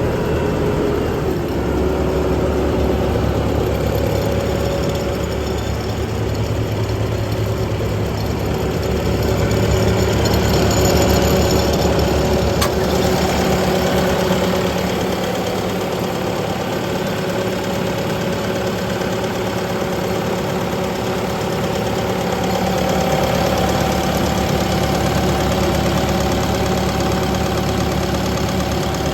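Bobcat T740 skid steer's four-cylinder turbocharged diesel engine running steadily, dropping slightly in pitch about a second in and then holding an even speed.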